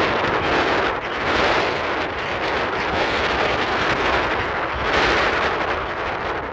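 Wind buffeting the microphone of a camera on a moving e-bike: a loud, rough rush that swells and eases, strongest about a second and a half in and again about five seconds in.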